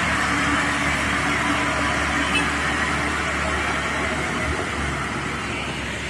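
Diesel engine of a medium box truck pulling under load as it passes close by on an uphill road: a steady engine drone with tyre and road noise that slowly fades after about three seconds.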